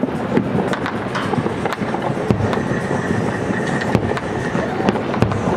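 Fireworks popping and crackling over a steady wash of crowd and city noise, with a held high whistle-like tone for about a second and a half near the middle.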